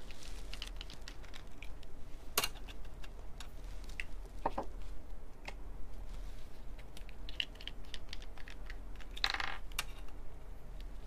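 Light, scattered clicks and taps of small craft tools and pieces handled on a tabletop while stencilling paint onto a metal blank, with one sharper click about two and a half seconds in and a brief rustle or scrape near the end.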